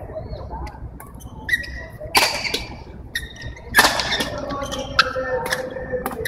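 Badminton rally: several sharp racket hits on the shuttlecock and short squeaks of court shoes on the court mat, over the steady murmur of a large sports hall.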